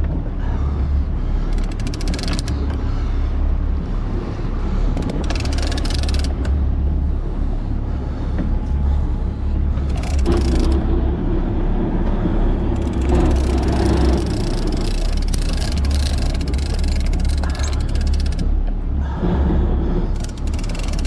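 Boat engine running with a steady low hum. A steadier mid-pitched tone joins it for a few seconds about halfway through and again near the end.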